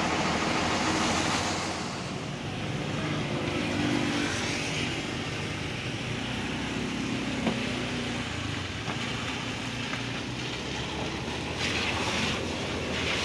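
Large coach bus's diesel engine running as the bus moves off, its note shifting a few times.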